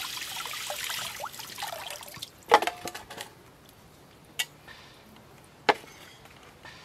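Tap water running and splashing over a plucked duck carcass as it is rinsed, dying away about two seconds in. Three sharp knocks follow, the first and loudest just after the water stops.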